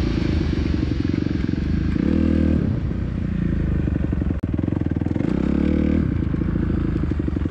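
Dirt bike engine running, its note shifting twice as the throttle is worked, with a brief drop about four seconds in.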